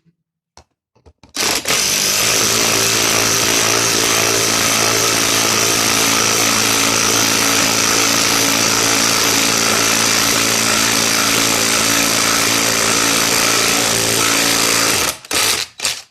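DeWalt DCF885 cordless impact driver driving a lag screw into wood, hammering continuously for about 13 seconds. It starts about a second and a half in and stops near the end.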